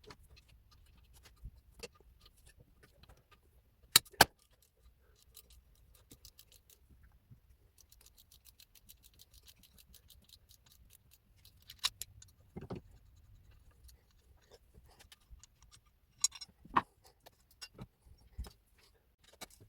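Metal hand tools and engine parts clinking and clanking in intermittent sharp knocks, the loudest a double clank about four seconds in, with a stretch of rapid fine clicking in the middle.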